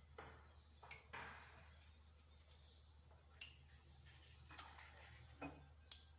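Near silence: a few faint taps and soft rustles of hands working semolina dough and setting small cakes down on a metal baking tray, over a low steady hum.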